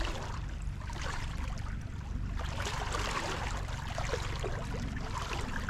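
Small waves lapping and splashing against shoreline rocks, a steady crackling wash, with a low rumble of wind on the microphone.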